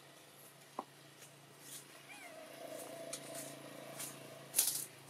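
Baby long-tailed macaque crying: about two seconds in, a short rising-and-falling call draws out into one long steady whine. A sharp rustle near the end is the loudest sound.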